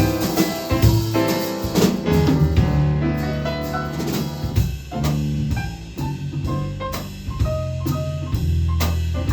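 Small jazz group playing a ballad: drum kit, a bass line and piano, with held melody notes coming in about halfway through.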